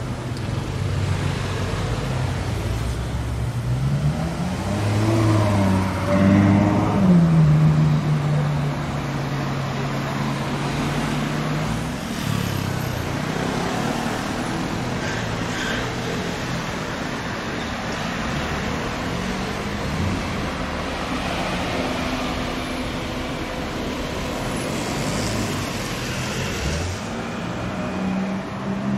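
Car engines in slow street traffic. One revs up and settles back about five to seven seconds in, then engines hold a steady drone as cars move past at low speed.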